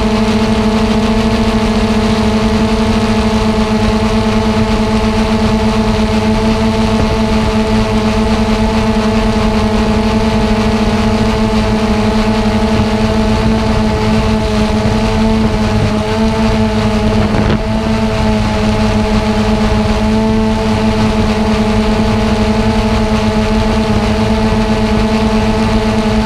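Xiro Explorer G quadcopter's electric motors and propellers droning steadily in slow flight, an even multi-tone hum with a brief waver about two-thirds through, heard through the drone's own onboard camera.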